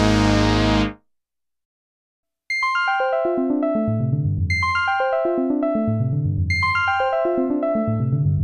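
Sequential Prophet-6 analog polyphonic synthesizer playing patch demos. A held chord cuts off about a second in, and after a short silence a bell-like plucked patch plays a quick falling run of notes, repeated about every second and a half.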